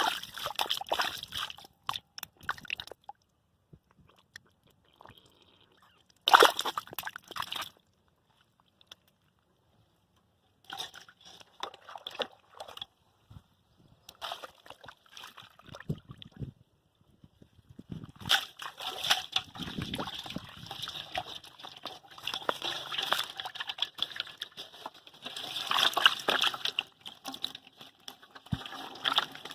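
Muddy water sloshing and splashing as hands grope through a mud hole for catfish, coming in irregular bursts with pauses between them and one sharp splash about six seconds in.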